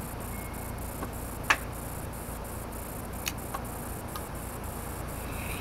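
A few sharp clicks of a steel knife blade against a sharpening stone, the loudest about a second and a half in, over a steady low background noise.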